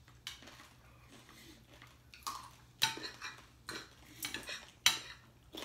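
Plates and cutlery clinking on a dinner table: a scattered run of short, sharp clinks, the loudest about three seconds in and again near the end.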